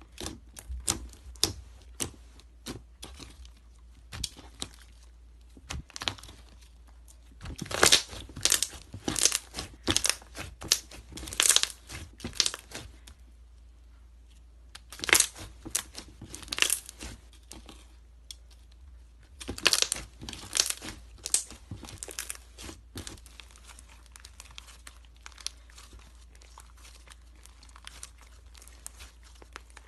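Slime being squished and worked, giving runs of sharp crackling pops and clicks with quieter pauses between. It grows softer near the end.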